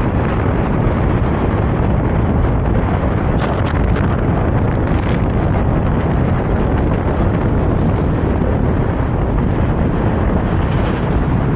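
Wind buffeting the microphone of a camera held out of a moving car's window, mixed with the car's road noise. The noise is steady and heavy in the lows.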